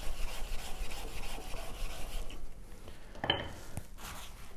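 A small stone block rubbed back and forth over a wet Japanese water stone to clean its surface: rhythmic rubbing strokes that stop about two seconds in, followed by a brief sharp sound a little after three seconds.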